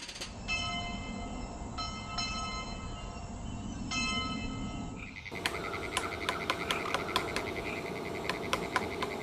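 A horn-like pitched tone sounds three times, each lasting about a second, over a low rumble. After a cut about five seconds in, a dense pulsing chorus of animal calls follows, with many sharp clicks.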